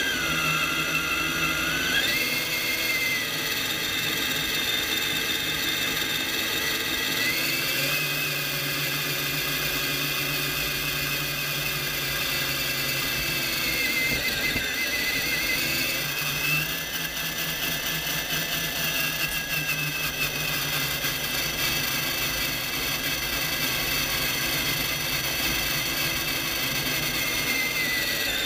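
Drivetrain whine of an Axial SCX10 Honcho 1/10-scale RC rock crawler, heard from a camera mounted on the truck: the electric motor and gears whine steadily while driving, the pitch rising and falling several times as the speed changes.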